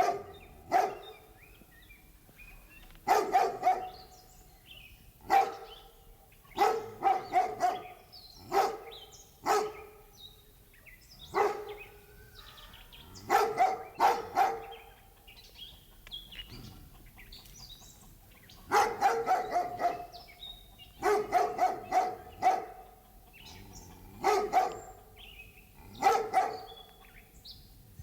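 A dog barking, sometimes once and sometimes in quick runs of three or four, with pauses of a few seconds between. Birds chirp faintly throughout.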